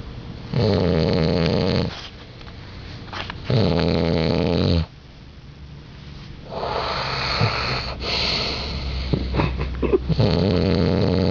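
Loud snoring. Two pitched snores of just over a second each, about three seconds apart, then a longer, rougher snoring breath from about six and a half seconds in, with a few sharp clicks near the end.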